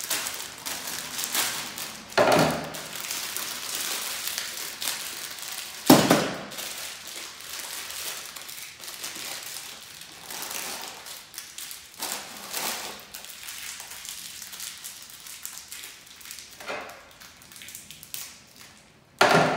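Crinkling of a small plastic bag of hardware as it is worked open by hand, with scattered sharp knocks of parts or a tool against the work surface. The loudest knock comes about six seconds in, and another comes near the end.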